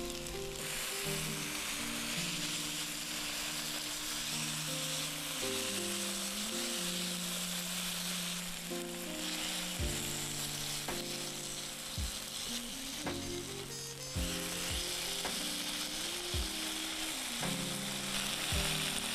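Sliced pork and onions sizzling on a hot griddle pan as they are stirred with a silicone spatula, with a few light knocks in the second half.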